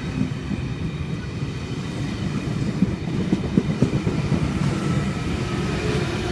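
Double-deck V-set electric intercity train pulling out of a platform and rolling past close by: a steady low rumble of wheels on rail with a faint steady whine above it, and a short run of wheel clacks over rail joints about halfway through.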